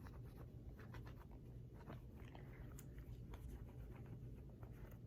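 Faint rubbing and small scattered clicks of a cleaning rag wiping the cylinder and frame of a stainless S&W 686 Plus revolver, over a steady low hum.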